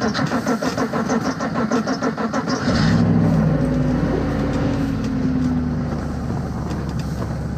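Diesel truck engine being cranked in extreme cold on a jump-start, turning over in a fast even rhythm, then catching about three seconds in and running steadily.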